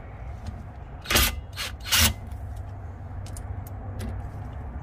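A few short clattering knocks about one and two seconds in, with light clicks between, as a cordless power tool is handled and fitted onto a bolt on the rear brake hub.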